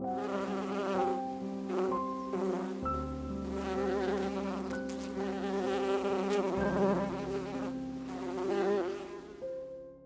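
A mass of honey bees buzzing, a steady wavering hum that fades out near the end, over soft piano music.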